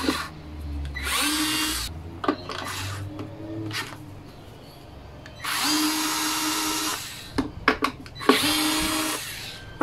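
Cordless electric screwdriver running in several short runs of about a second each, with sharp clicks in between, as it works screws on a Victa two-stroke lawnmower's engine cowling.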